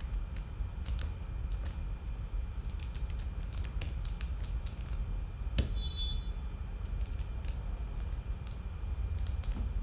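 Typing on a computer keyboard: irregular key clicks in short runs with pauses, one sharper click about five and a half seconds in, over a steady low hum.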